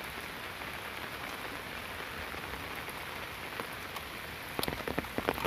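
Heavy monsoon rain falling steadily. From about four and a half seconds in, sharp, close drop hits join it and make it louder.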